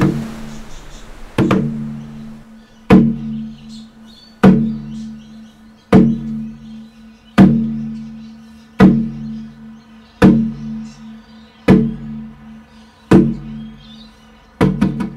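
Warup, a Torres Strait hourglass drum with a wallaby-skin head, struck by hand in a slow, steady beat of about one stroke every one and a half seconds. Each stroke rings on in a deep tone, and the strokes quicken right at the end.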